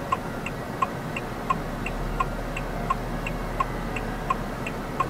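Haval H6's hazard-light indicator ticking in the cabin, an even tick-tock of about one and a half cycles a second, a louder tick alternating with a softer one. The hazards were switched on automatically by the car's self-driving reverse-tracking function.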